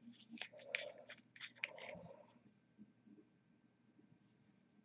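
Faint small clicks and rustles of a paint dropper bottle being handled for about two seconds, then near silence.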